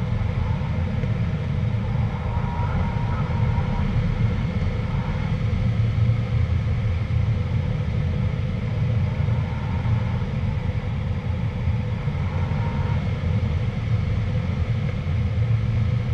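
Steady low rumble of air rushing over a glider's canopy and airframe in flight, heard from inside the cockpit.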